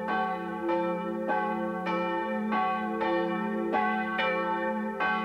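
Church bells pealing in a steady swing, a stroke a little less than every second. The ringing of each stroke overlaps the next.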